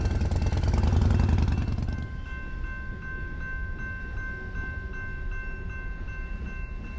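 Railroad grade-crossing bell ringing steadily at about three strokes a second while a loaded coal train rolls past. For the first two seconds a louder low rumble covers it.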